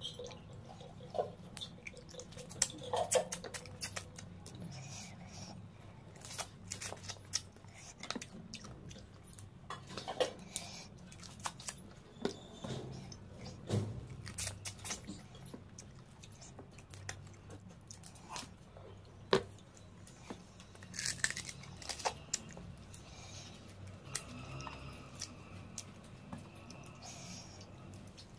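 Close-up eating sounds: crab curry and rice eaten by hand, with crab shell cracking between the fingers and wet chewing and crunching of crab and rice. Irregular sharp clicks and crackles come throughout.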